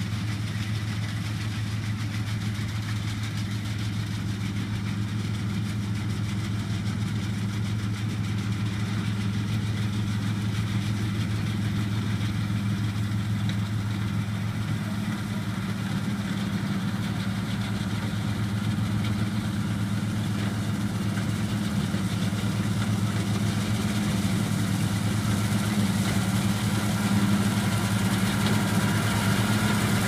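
New Holland TX36 combine harvester running steadily while cutting wheat, its diesel engine making a constant low hum that grows gradually louder as the machine comes closer toward the end.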